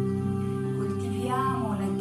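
Slow, calm background music of held low notes, with a short higher melodic phrase a little past halfway.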